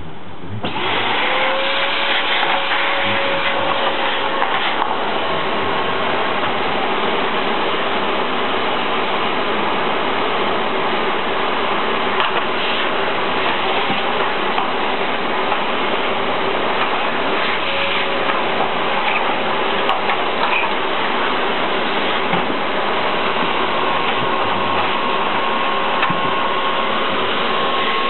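Canister vacuum cleaner switched on with a foot press about a second in, then running steadily: a loud rush of air with a steady motor whine.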